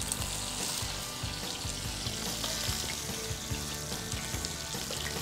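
Stuffed milkfish fillet shallow-frying in hot oil in a nonstick pan: a steady sizzle.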